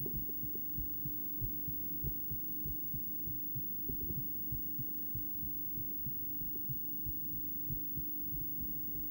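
Heartbeat audio from a cardiac ultrasound of a woman's heart: repeated low pulsing beats over a steady low hum.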